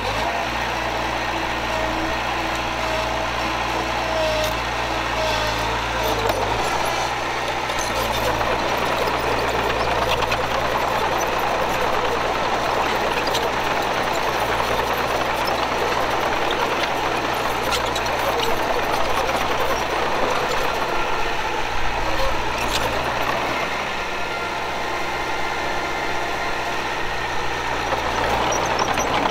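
Diesel engine of heavy earthmoving machinery working steadily, with its low note shifting about six seconds in and a few sharp clanks along the way.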